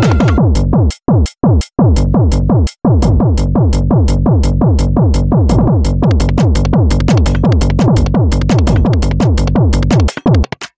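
Live tekno played on the G-Stomper drum-machine app: a fast, steady electronic kick drum with falling-pitch thuds and synth layers. The beat stutters with short dropouts in the first three seconds, hi-hats join about six seconds in, and it breaks up again near the end.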